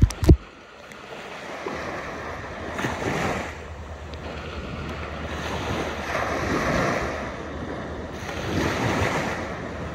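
Small waves washing up onto a sandy beach, the surf swelling and easing about every three seconds, with wind rumbling on the microphone. Two brief knocks right at the start.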